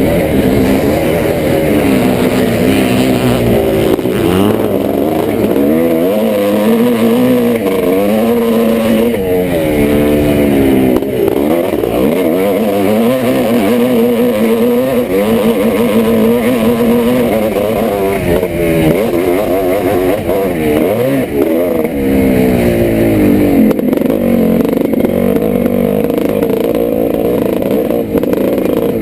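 A 1986 Yamaha YZ490's single-cylinder two-stroke motocross engine revs hard and drops back over and over, its pitch climbing and falling as it accelerates, shifts and rolls off around the track.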